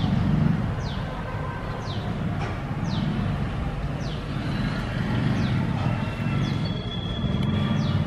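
Steady low rumble of road traffic, with a bird's short downward-sliding high note repeated about once a second.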